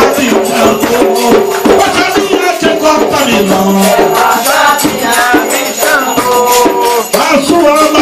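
Umbanda ritual toque: a group singing a chant over rapid, steady percussion of drums and shakers.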